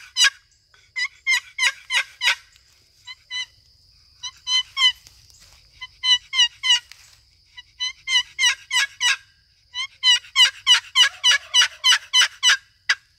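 Long box turkey call, a mineralized green poplar box with a walnut paddle, stroked in runs of yelps: each note breaks from a high whistling 'key' down into the lower raspy part of the yelp. There are about six runs of three to ten quick notes with short pauses between, the longest run near the end.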